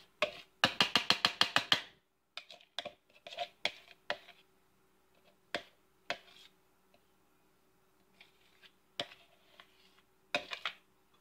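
Grated cauliflower being tipped and scraped out of a plastic bowl into a stainless steel skillet: a quick run of clicks and rattles for about two seconds, then scattered light ticks, with a short flurry of clicks near the end.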